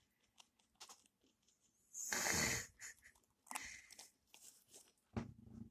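Guinea pig moving about in wood-shaving bedding: scattered light crunching and clicking, with a louder rustle about two seconds in and softer ones after.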